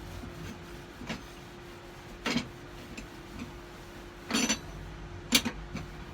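Several separate knocks and clatters of metal and kitchen items being handled while a gas cooker is cleaned, two of them short rattles, over a steady low hum.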